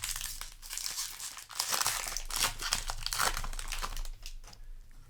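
Foil wrapper of a Magic: The Gathering play booster pack crinkling as it is handled, a busy run of crisp rustles that dies down about four and a half seconds in.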